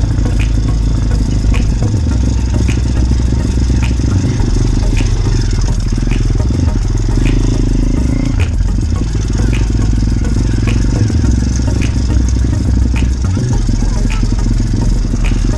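Motorbike engine running steadily while riding, under a heavy low rumble, with a faint tick repeating about every half second.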